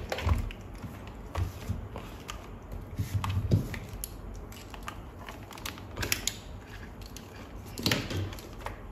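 Hands handling a digital multimeter and its test leads: scattered plastic clicks and taps with light rustling, a few louder clicks about a second and a half, three and a half, six and eight seconds in.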